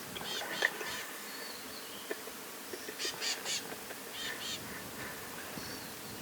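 A bird calling in quick runs of two or three high, arched notes, repeated three times, with a few faint clicks between them.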